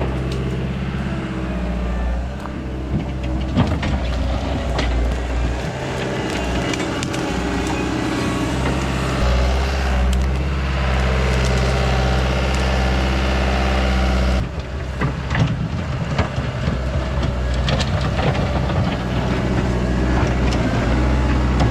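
Caterpillar 242B skid steer's diesel engine running steadily under work, with scattered knocks and clanks from the machine. The sound drops abruptly about two-thirds of the way through, then carries on.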